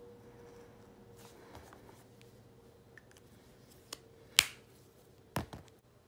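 Faint scratching of a felt-tip marker on paper, then a sharp click as the marker's cap is snapped, followed about a second later by a second, softer click. A faint steady hum lies underneath.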